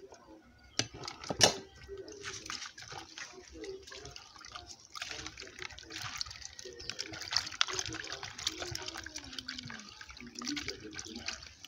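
Dried fish being washed by hand in water in a plastic bowl: splashing and swishing as fingers rub the fish. Near the start, two knocks as the plate is tipped against the bowl, the second sharp and the loudest sound.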